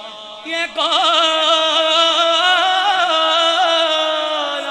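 A man singing a naat into a microphone, one voice holding a long wavering, ornamented note that starts about a second in.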